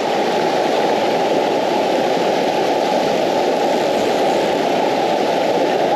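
Fast river water rushing over a rocky riffle: a steady, even rush with no breaks.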